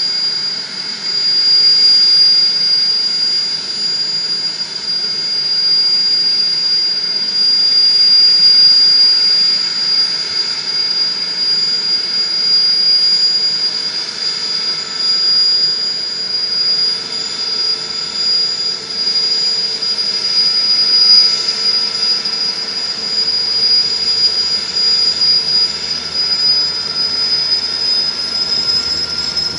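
Aérospatiale Alouette III helicopter running on the ground, its turbine making a loud, steady high-pitched whine over a rushing noise. The whine rises slightly in pitch near the end as the engine spools up towards takeoff.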